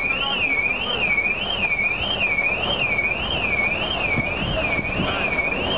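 Electronic siren warbling steadily, its pitch sweeping evenly up and down just under twice a second, over low background noise.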